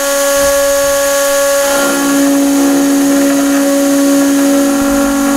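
CNC milling machine's spindle running and milling an aluminium plate: a steady whine of several tones over a hiss. A lower tone in it grows louder about two seconds in.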